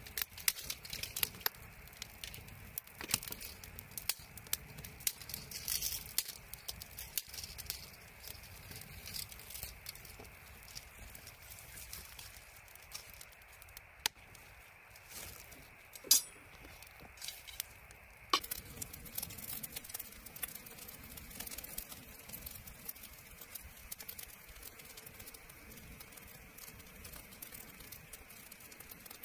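Wood fire crackling, with irregular sharp pops and snaps over a low steady hiss; the pops thin out after about 18 seconds.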